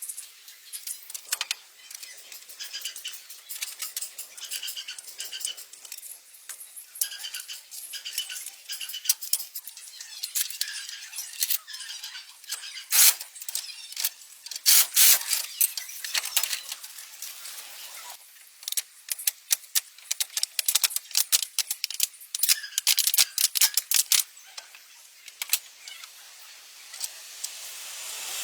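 Small metal parts of a truck axle clicking, rattling and scraping as they are handled and worked on by hand, in quick irregular strokes with louder clusters partway through and again later.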